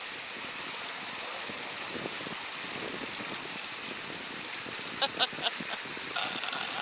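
Steady rush of running water. About five seconds in, three short voice sounds break in, and there is another brief one near the end.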